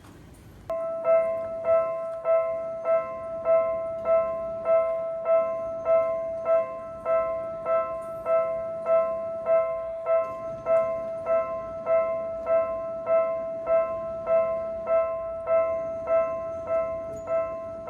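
Japanese railroad crossing warning bell starting suddenly under a second in and then ringing steadily, a bit under two even strokes a second, warning that a train is approaching and the barriers are coming down.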